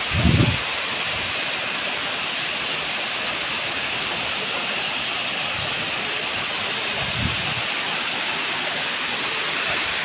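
Steady rush of a waterfall pouring down a rock face into a shallow pool. Two brief low thumps sound through it, one just after the start and another around seven seconds in.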